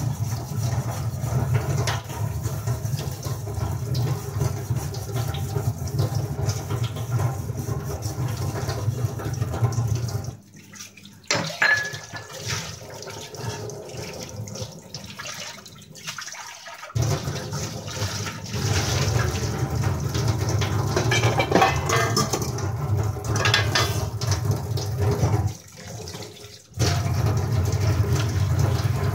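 Kitchen tap running steadily into the sink while utensils are washed; the water is shut off about ten seconds in, leaving a few seconds of scrubbing and clinks of utensils, then turned back on, with another short break near the end.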